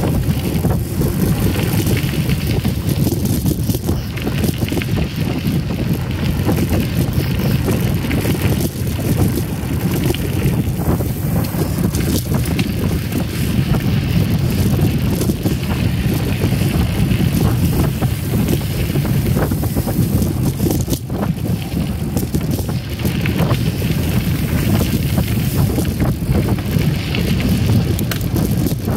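Mountain bike ride on a dirt trail: steady low wind rumble on the microphone over the rolling tyres, with scattered small clicks and rattles from the bike.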